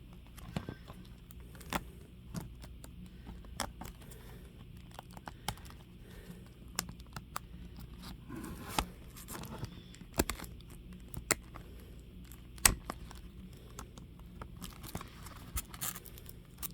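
Plastic shrink wrap on a CD album being picked and scratched at in a struggle to open it: crinkling and scraping, with scattered sharp clicks.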